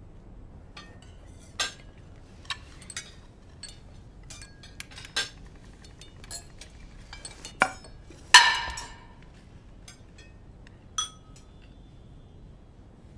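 Tableware clinking: spoons against china plates and glasses in scattered single clinks, the loudest a ringing clink a little past the middle.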